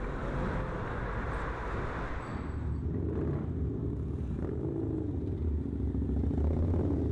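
Motorcycle engines on a city street: first a rushing exhaust noise of a passing bike, then, about two seconds in, the low, deep rumble of several big cruiser motorcycles pulling away, growing a little louder toward the end.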